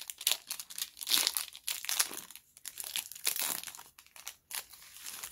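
Foil booster-pack wrapper crinkling and rustling in a run of irregular crackles as the pack is handled and the stack of Pokémon cards is pulled out of it.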